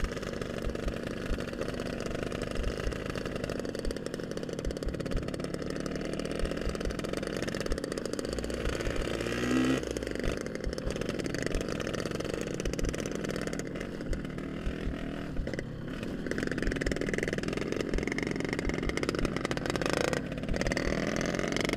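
Yamaha RX-King's two-stroke single-cylinder engine running at low to moderate revs as the motorcycle is ridden, its revs rising and falling a little.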